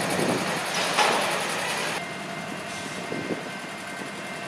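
GE diesel-electric freight locomotives running as they roll slowly past, with a brief loud clank about a second in. The sound then becomes a quieter, steadier diesel rumble heard from farther off.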